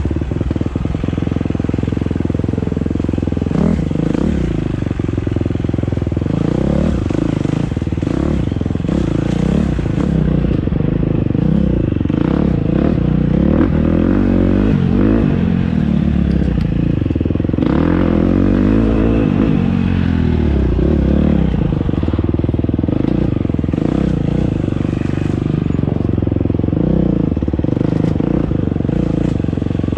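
Dirt bike engine revving up and dropping back again and again, the throttle opened and closed in short bursts as the bike is ridden along a tight woods trail.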